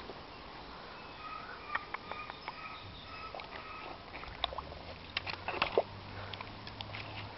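Chow chow puppy with its head in a metal bowl, lapping and sloshing water, with scattered clicks and knocks against the bowl that come thickest about four to six seconds in.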